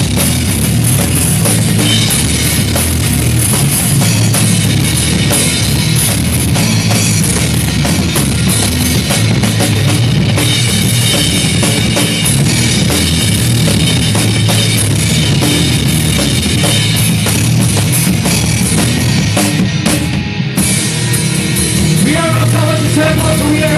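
Loud rock music with a full drum kit driving it, dense and continuous, with a short drop about 20 seconds in.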